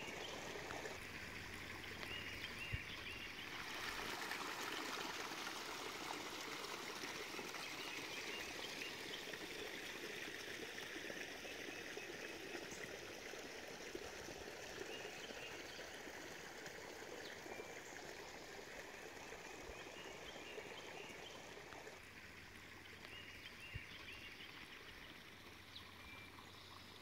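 Water trickling steadily in a thin stream, with a few faint high chirps now and then.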